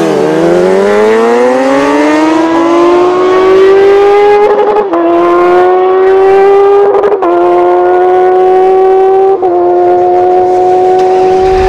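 Kawasaki Ninja H2R's supercharged inline-four accelerating hard at full throttle. Its pitch rises steadily for the first five seconds, then dips briefly at upshifts about five, seven and nine and a half seconds in, climbing slowly in each higher gear.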